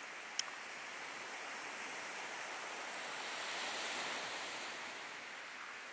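Small surf waves washing onto a sandy beach, swelling as a wave breaks about four seconds in. A single sharp click sounds near the start.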